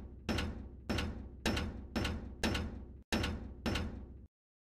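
Sound effects for an animated logo intro: a run of heavy slams about half a second apart, each hitting sharply and dying away quickly, seven in all, stopping abruptly shortly before the end.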